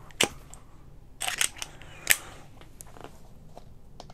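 Sharp, irregular clicks and taps from a screwdriver and a steel screw being handled against a 3D-printed plastic caster adapter. There is one click about a quarter second in, a quick cluster a little over a second in, and another click just after two seconds.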